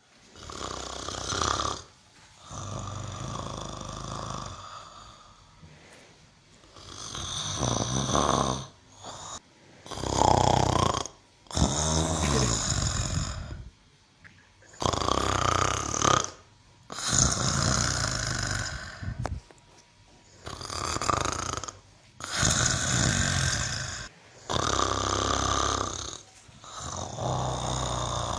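A cow snoring: loud, rasping breaths come one after another, about one every two seconds. One breath near the middle carries a wavering, moan-like tone.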